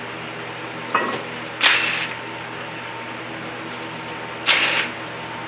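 A power tool run in short bursts: a brief blip about a second in, a burst of about half a second just after, and another near the end. A steady hum runs underneath.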